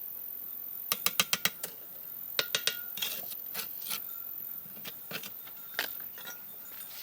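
A series of sharp, hard clicks or taps: about six in quick succession about a second in, three more soon after, then scattered single ones.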